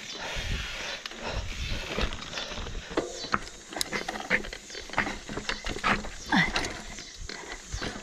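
Mountain bike clattering over a rocky trail section, with many short knocks and rattles from the wheels, frame and drivetrain hitting rock. About six seconds in, a short falling groan from the rider as the bike bogs down on the rocks.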